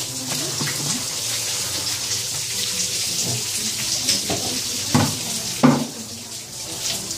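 Water poured out of a plastic bucket, splashing steadily onto the cheese press table. Two sharp knocks come about five seconds in, the second the loudest.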